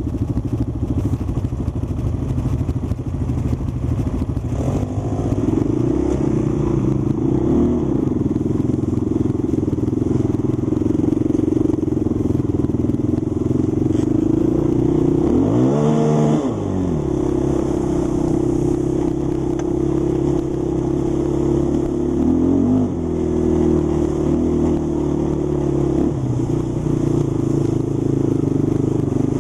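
Polaris Sportsman ATV engine running under way, its pitch rising and falling with the throttle. About 16 seconds in the revs climb sharply and drop away.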